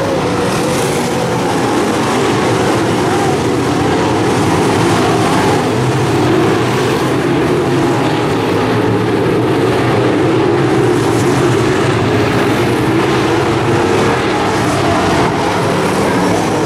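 A pack of dirt modified race cars running flat out around a dirt oval: a loud, continuous blend of V8 engines, the engine notes rising and falling as the cars pass through the turns and down the straights.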